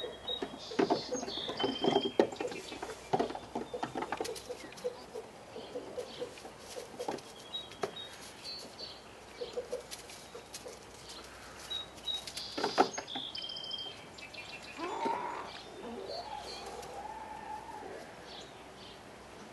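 Goat kids' hooves clattering and knocking on a wooden picnic table and benches as they jump about, in quick runs of knocks that are busiest in the first few seconds and again about two-thirds of the way through. Small birds chirp now and then throughout.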